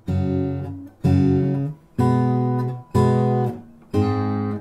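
Background music: an acoustic guitar strumming chords, about one strum a second, each ringing out before the next.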